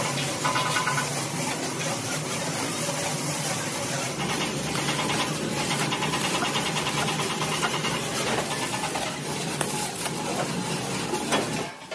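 Stick (arc) welding: the electrode's arc crackling and sizzling steadily over a low hum while a steel bracket is welded to the steel tank shell. It stops near the end.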